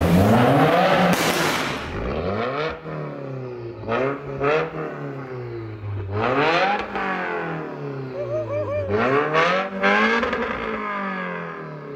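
Subaru WRX STI's turbocharged flat-four revved through a Tomei Expreme titanium single-exit exhaust, the engine note rising and falling several times after a loud burst of acceleration at the start, with a few short, sharp cracks between revs.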